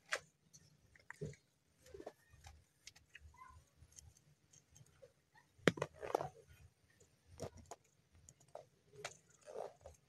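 Irregular light plastic clicks, taps and rattles as a removed Toyota Corolla interior door handle is handled and turned over, with a louder cluster of knocks about six seconds in.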